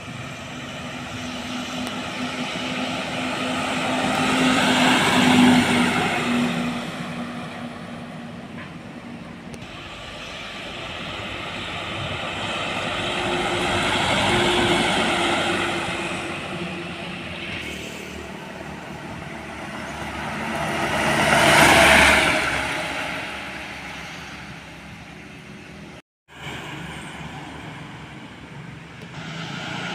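Road vehicles passing by one after another: three pass-bys of engine and tyre noise, each swelling and fading, the last the loudest. Near the end the sound cuts out for a moment.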